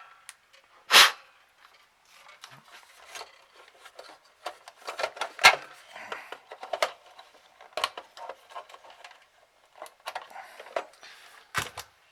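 Handling noise from fitting an Xbox 360 DVD drive into the console: scattered clicks, knocks and rubbing of plastic and metal parts, with a sharp click about a second in and another loud click about five and a half seconds in.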